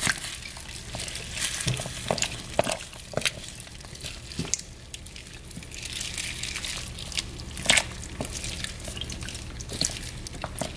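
A spoon stirring carrots into a thick tomato-based stew in a slow cooker: irregular wet squelches and short clicks over a faint steady hum.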